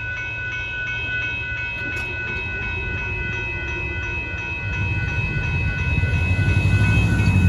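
Railroad grade-crossing warning bells ringing steadily as the crossing gates lift after a train has cleared, with a low rumble of waiting cars starting to move that grows louder over the last couple of seconds.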